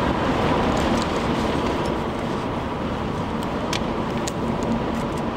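Steady road noise inside a moving car's cabin, with a faint steady hum and a couple of light ticks about four seconds in.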